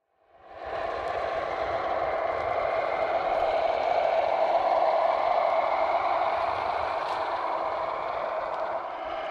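RC scale model Volvo A40 articulated dump truck driving on gravel: a steady mechanical running noise from its drivetrain with its tyres crunching over the gravel. It fades in over the first second and is loudest around the middle as the truck passes.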